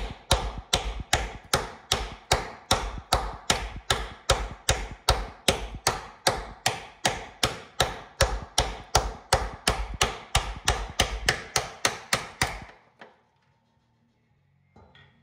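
Steady run of hammer blows on steel at the rusted rear leaf-spring mount of a Jeep Cherokee XJ, about three strikes a second, stopping about 13 seconds in. The blows are meant to free a seized, torch-heated nut that an impact gun would not shift.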